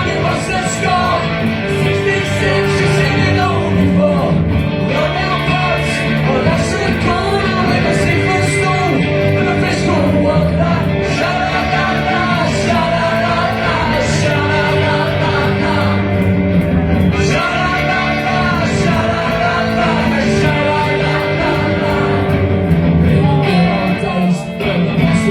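Live rock band playing loudly: electric guitar, bass and drums with a wavering melodic line over the top and steady drum and cymbal hits.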